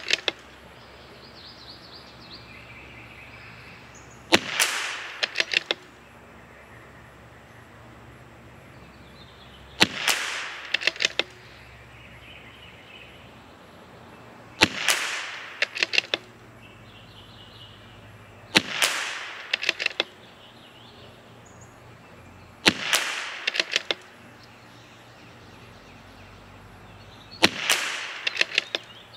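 .22LR CZ 457 MTR bolt-action rifle with a Lilja match barrel fired six times, one shot about every four to five seconds. Each shot is a sharp crack with a short ringing tail, followed about a second later by a quick run of clicks as the bolt is worked to chamber the next round.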